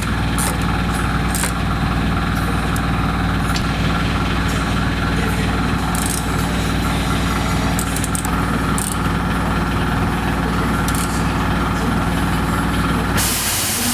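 Yamaha R1-Z 250's two-stroke parallel-twin engine running steadily at idle, then a short rush of noise just before it stops near the end.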